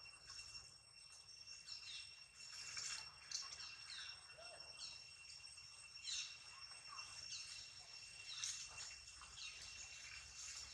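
Birds chirping in short, scattered calls over a steady, high-pitched insect drone, all faint.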